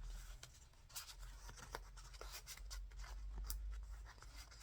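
Paper and card being handled: light rustling, scraping and small scattered taps as cards are slid into journal pockets.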